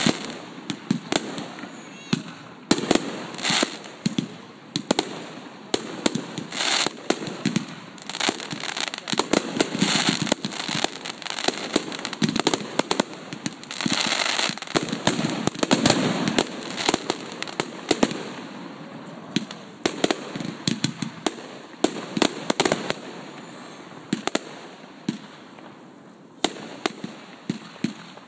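Aerial fireworks bursting in quick succession: sharp bangs mixed with dense crackling from crackling-star effects. The crackling is thickest in the middle, thins out later on, and a few more bangs come near the end.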